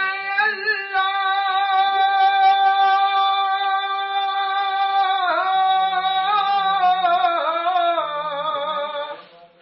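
A single voice singing long held notes of a devotional chant. One note is held steady for about five seconds and dips, then another is held until it stops just before the end.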